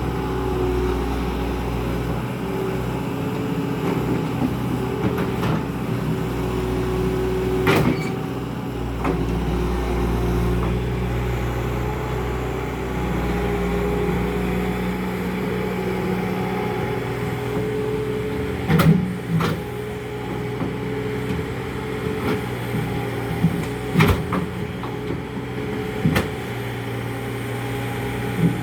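Bobcat skid-steer loader's engine running steadily under load, its pitch shifting now and then, with sharp knocks and clanks about eight seconds in and several more in the last third, likely from the concrete slab being broken up and moved.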